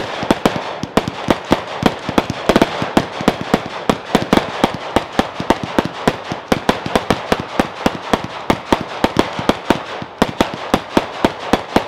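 Epic Fireworks Lion's Wrath, a 54-shot consumer firework cake, firing in rapid succession: sharp pops about four to five a second over a steady hiss, stopping abruptly near the end.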